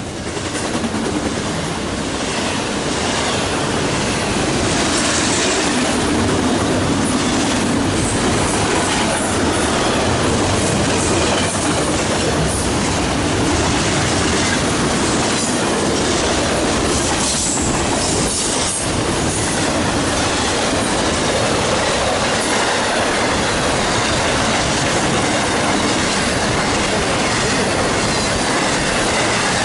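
A long intermodal freight train's well cars, loaded with trailers and containers, rolling past at about 60 mph: a steady, loud rush of wheels on rail.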